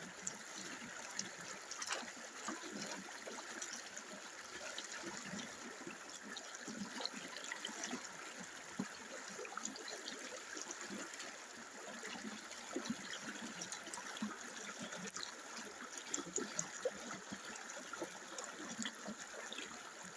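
River water flowing over rocks, a steady rushing babble with small irregular splashes throughout.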